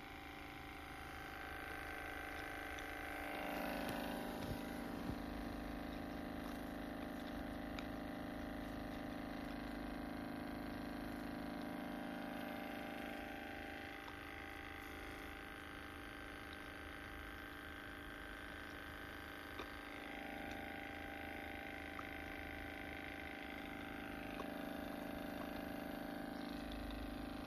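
RecovaPro percussion massage gun running with a steady motor hum. The hum grows louder about three seconds in, eases back about ten seconds later, and picks up again in the last few seconds.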